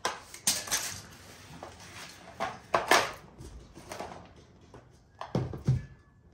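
Bicycle parts and packaging being handled: an irregular run of crackles, scrapes and knocks, loudest about three seconds in, with two dull thumps a little after five seconds.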